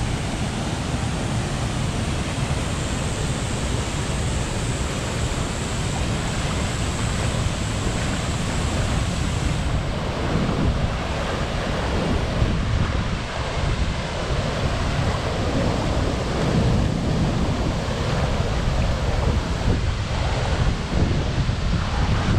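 Havasu Falls pouring: a loud, steady rush of falling water, with wind buffeting the microphone.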